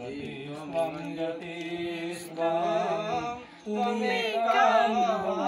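A Hindu priest chanting mantras in a steady sing-song recitation, with a short breath pause about two-thirds through.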